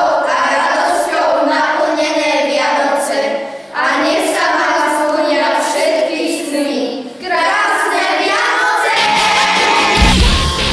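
A group of children singing together without accompaniment, in three phrases with short breaks about three and a half and seven seconds in. Near the end they shout out together and loud music with a heavy beat cuts in.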